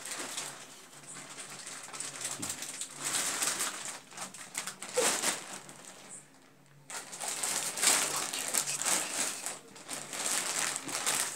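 Clear plastic wrapping on a large stuffed teddy bear crinkling as it is grabbed and dragged, in uneven bursts with a brief lull a little past the middle.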